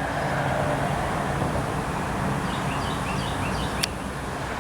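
Steady hum of passing road traffic, swelling slightly early on, with a small bird chirping several times in quick succession and one sharp click near the end.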